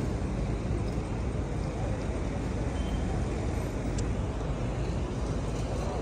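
Steady outdoor background noise: a constant low rumble with a hiss above it, unchanging throughout, with a faint tick about four seconds in.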